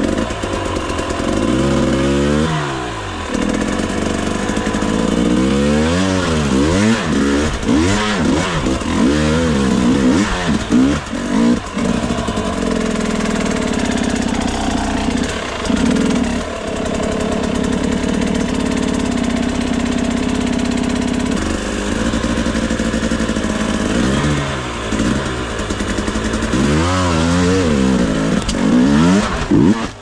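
Enduro motorcycle engine revving in repeated throttle bursts, rising and falling sharply with steadier running between, as the bike claws its way up a rocky creek bed.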